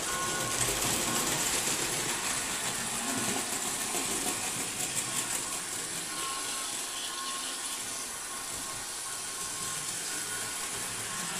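Märklin H0 model train, an E 44 electric locomotive hauling coaches, running along the layout's track: a steady whirring, rolling noise.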